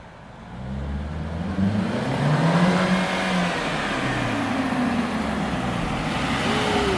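Mercedes-Benz C300 convertible's turbocharged four-cylinder engine approaching and pulling up close, growing louder about half a second in. Its note rises as it accelerates, then eases off.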